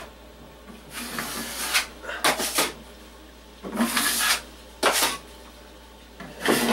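An 8-inch steel drywall knife scraping wet SHEETROCK 45 joint compound onto the wall over metal corner bead, feathering the edges. There are about half a dozen short scraping strokes, each under a second, at uneven gaps.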